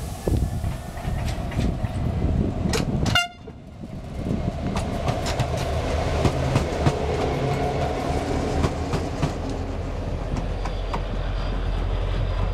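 Diesel-electric locomotive, a Vossloh Euro 4000, passing close with its engine running and its wheels clicking over the rails. The sound drops off sharply about three seconds in, then comes back as a steady low drone with many wheel clicks.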